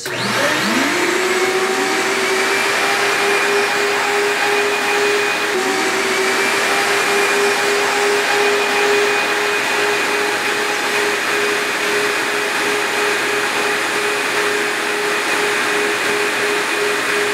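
Three-motor, dual-stage HEPA vacuum switched on, its motors spinning up with a rising whine at the start and another rise about six seconds in. It then runs steadily with a high whine over rushing air as it vacuums out the fireplace firebox.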